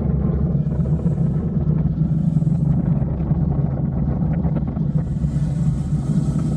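Motorcycle riding at road speed: a steady low drone of engine and road noise, with wind hissing over the microphone in short swells about a second and two seconds in and again from about five seconds on.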